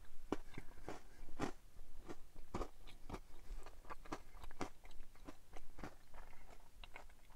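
A person chewing food close to the microphone, with irregular crunches and mouth clicks a few times a second.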